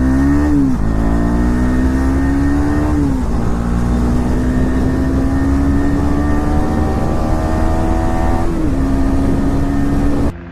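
KTM Duke 250's single-cylinder engine accelerating hard through the gears, its exhaust note climbing in pitch and dropping at each upshift: three shifts, about one, three and eight and a half seconds in. The sound cuts off abruptly just before the end.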